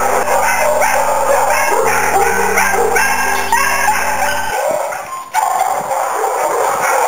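Many kennelled shelter dogs barking over one another. A backing track of held chords plays under the barking and stops about two-thirds of the way through, and the barking carries on after it.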